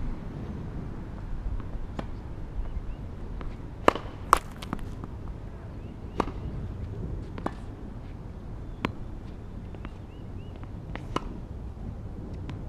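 Tennis ball pops: a ball being struck and bouncing on a hard court, about seven sharp pops spread out, the loudest a close pair about four seconds in. A low wind rumble on the microphone runs underneath.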